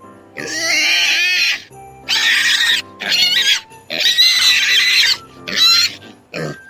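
An animal giving six high-pitched calls in quick succession, the last one short and lower, over quiet background music.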